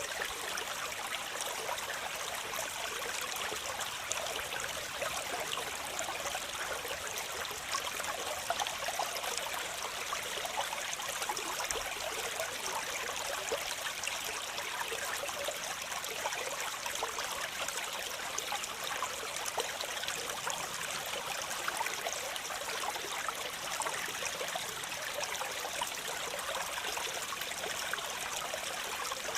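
Waterfall: water falling and splashing in a steady, even rush, with little deep rumble.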